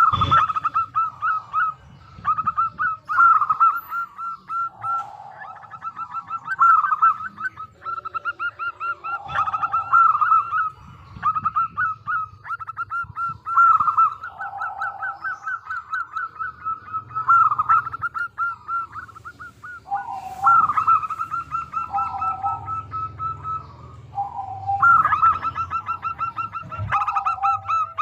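Zebra doves cooing: repeated phrases of rapid staccato notes, the phrases following one another every second or two and at times overlapping.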